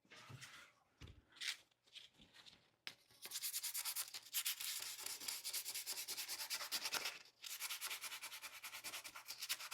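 Sandpaper rubbed by hand over a hickory axe handle in quick, even back-and-forth strokes, sanding down a freshly burned brand. A few faint handling sounds come first; the sanding starts about three seconds in and pauses briefly near the end.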